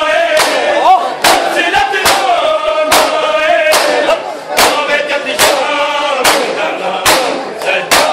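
Punjabi noha, a Shia lament, chanted by male voices over a steady beat of chest-beating (matam), a little more than one slap a second.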